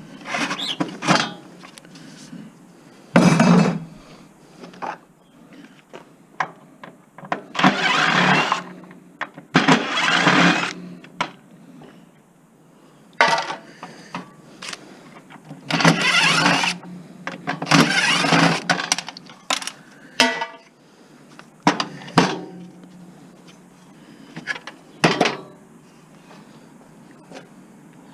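Irregular clanks, knocks and scraping of metal parts being worked loose and handled while a table saw is taken apart for scrap, with a few longer grinding scrapes.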